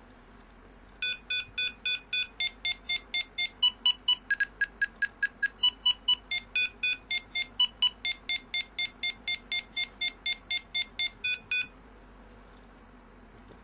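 Arduino-driven piezo buzzer beeping in a quick even pulse, about four beeps a second, starting about a second in and stopping near the end. The pitch steps up and down between groups of beeps, signalling how close the tracked marker is to the centre of the screen: higher means closer.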